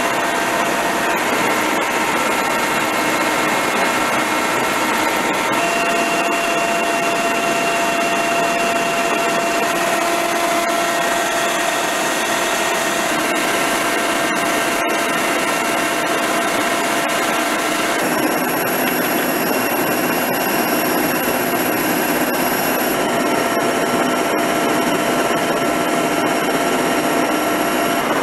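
Steady, loud helicopter cabin noise: engine and gearbox whine, heard as several steady tones over an even hiss, with the mix of tones changing about two-thirds of the way through.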